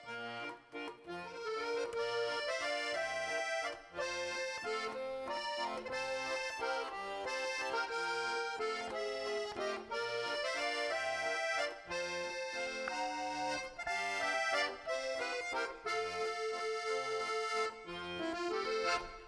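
Background instrumental music: an accordion playing a melody of held notes.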